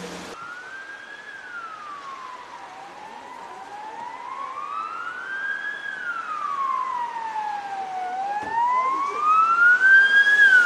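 Emergency vehicle siren wailing in slow rising and falling sweeps, several seconds per cycle, growing louder toward the end.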